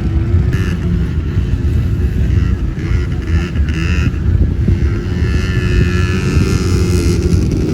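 A vehicle engine running steadily while driving, with a heavy low rumble throughout.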